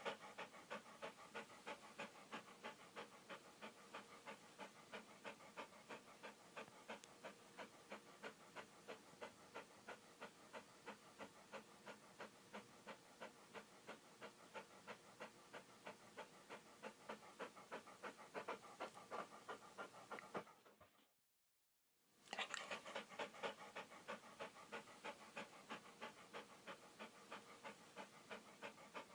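Dog panting rapidly and evenly, about three quick breaths a second. The panting stops for about a second some twenty seconds in, then starts again.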